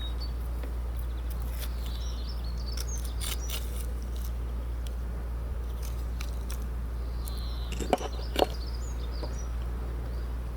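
Birds chirping now and then over a steady low background rumble, with scattered light clicks and two sharp knocks about eight seconds in.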